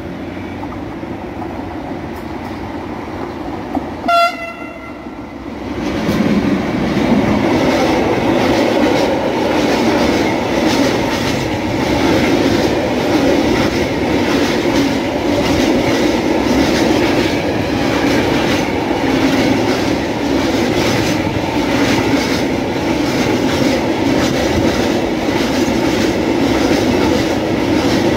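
A train approaching gives a short, sharp horn blast about four seconds in. From about six seconds a freight train of open wagons rolls past close by, its wheels clattering over the rail joints in a steady rhythm.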